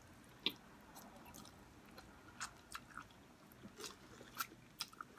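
Wet chewing and mouth smacks of someone eating spicy instant noodles: a faint, irregular run of short sharp clicks and squishy smacks.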